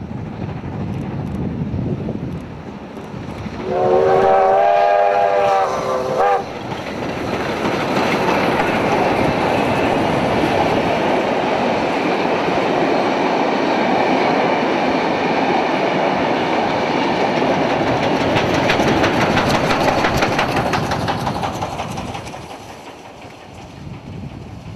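Victorian Railways K-class steam locomotive (K153) blows its whistle, one steady multi-tone blast of about two and a half seconds with a brief extra toot. It then passes close with its carriages, the wheels clicking over the rail joints, and the sound fades away near the end.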